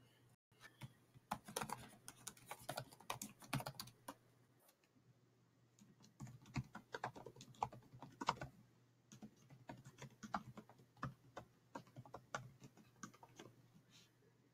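Faint typing on a computer keyboard in three runs of quick keystrokes, with a short pause about four seconds in: an email address and password being typed.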